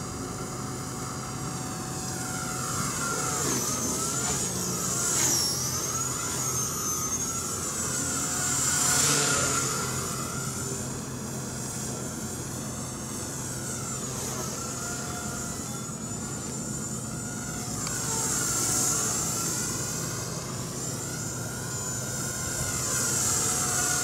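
Walkera V120D02S mini electric flybarless RC helicopter in flight: a high whine from its motor and rotors, its pitch repeatedly gliding up and down as the helicopter manoeuvres, swelling louder a few times as it passes closer.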